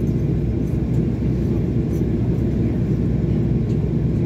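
Steady low rumble inside a jet airliner's cabin as it taxis after landing.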